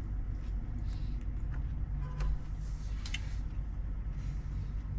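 Steady low rumble and hum inside a semi-truck's cab, with a few faint clicks.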